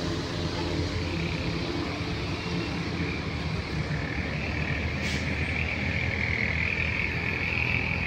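A steady high-pitched animal chorus that sets in about a second in and grows a little stronger, over a steady low rumble.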